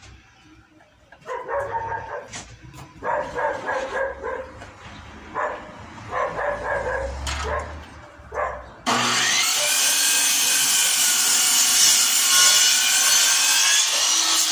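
A compound miter saw starts about nine seconds in, its motor spinning up with a rising whine, then runs loud and steady as its blade cuts through a wooden board to length. Before it come several short, irregular pitched sounds.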